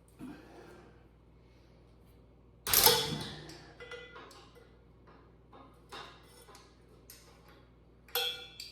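Tools and metal parts being handled: a loud clank about three seconds in that rings off, then scattered small clicks and knocks, and another sharp clatter near the end.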